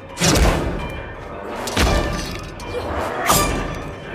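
Film fight-scene sound mix: three heavy impacts with crashing, about a second and a half apart, over dramatic score music.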